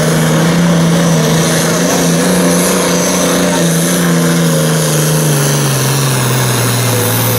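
Turbocharged diesel engine of a limited super stock pulling tractor running hard under full load while dragging a weight-transfer sled, with a faint high whine above the engine note. The pitch sinks gradually over the last couple of seconds as the growing sled drag pulls the engine down.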